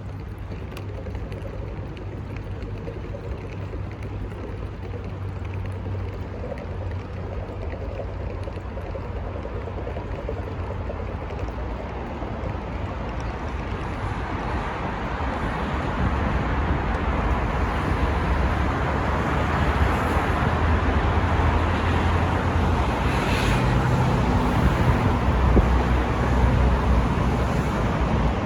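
Steady urban ambience of road traffic rumble with wind noise, growing louder through the second half.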